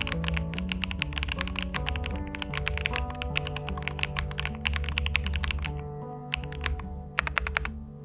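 Fast typing on an LMK81 mechanical keyboard with lubed Ice Pink switches, a two-layer tape mod and modded stock stabilizers: a dense run of keystrokes that thins briefly near the end, over background music.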